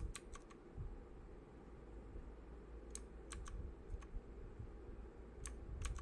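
Keys of an RK61 60% mechanical keyboard clicking as they are pressed one at a time, about ten presses in three small groups with pauses between.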